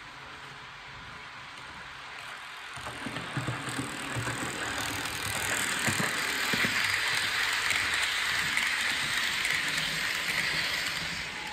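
Model train running past on the layout track: a rolling rattle with scattered clicks from the wheels on the rails and a steady hiss of running noise. It builds from about three seconds in, is loudest through the second half, and eases slightly near the end.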